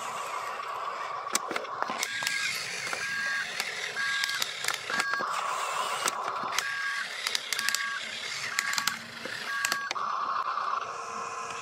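Electronic two-tone reversing beep from an RC dump truck's sound module, repeating about once a second as the truck backs up, over a steady electric motor whine and the crackle of its tyres on gravel.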